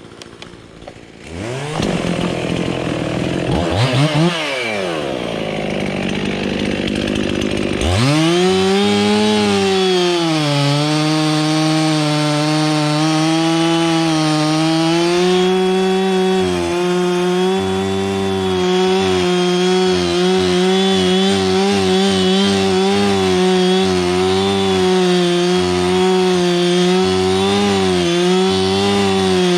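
Two-stroke chainsaw coming in about a second and a half in and revving up and back down once. From about eight seconds in it runs at high, steady speed, with small dips in pitch as it cuts into the oak.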